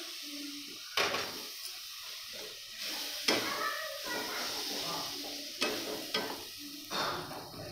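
Ground tomato sizzling in hot oil with fried onion and ginger-garlic masala as a metal spatula stirs and scrapes it around an aluminium kadai, with several sharp knocks of the spatula against the pan.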